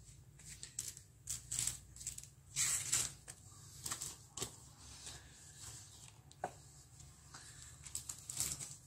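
Gloved hands brushing and smoothing a nylon fishnet bodystocking on a fabric surface: soft, irregular rustles and swishes, the loudest about three seconds in.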